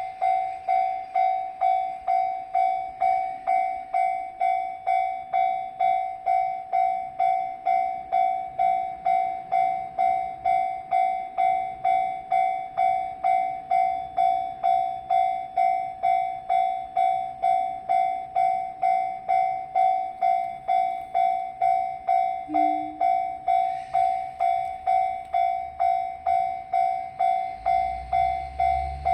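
Japanese level-crossing alarm ringing its 'kan-kan' in an even rhythm of about two strikes a second, a single ringing tone. Near the end a low rumble rises as the train approaches the crossing.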